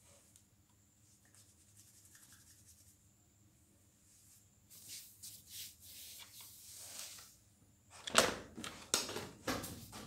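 Soft rustling and rubbing of a hand working through an animal's fur close to the microphone, then louder knocks and scrapes of handling from about eight seconds in.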